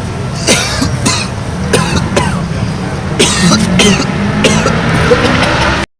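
A person coughing repeatedly: about seven short coughs over five seconds, cut off abruptly near the end.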